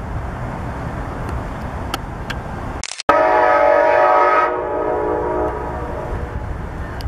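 Amtrak Siemens Charger diesel locomotive approaching with a low rumble. About three seconds in it sounds one loud blast of its chord air horn, lasting about a second and a half and tailing off over the next second.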